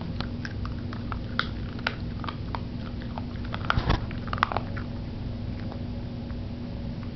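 Puppy chewing and biting a rubber Busy Buddy Twist 'n Treat treat-dispensing toy: irregular clicks of teeth on rubber, busiest about four seconds in, then sparser.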